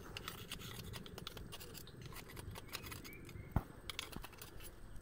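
A steel rebar rod scraping and clicking against oysters growing on mangrove roots as it pries at their shells, with one sharper knock about three and a half seconds in.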